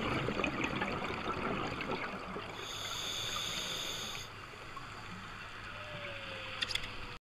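Underwater sound picked up by a diver's camera: a faint, steady crackling hiss of the water, with the bubbling of scuba exhaust bubbles. A steadier hiss lasts about a second and a half partway through, and the sound cuts off suddenly just before the end.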